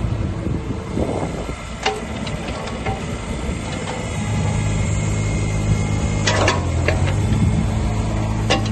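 Kubota KX36-2 mini excavator's diesel engine running as the machine swings its boom and works its hydraulics; the engine note gets louder about halfway through. A few sharp knocks break in, one about two seconds in, a cluster past the middle and another near the end.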